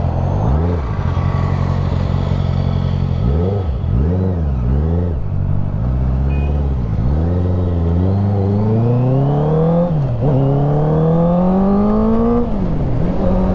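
Honda CBR650F inline-four engine blipped several times, rising and falling quickly. It then pulls away with the revs climbing steadily, dipping at an upshift about ten seconds in, climbing again and dropping at a second upshift near the end.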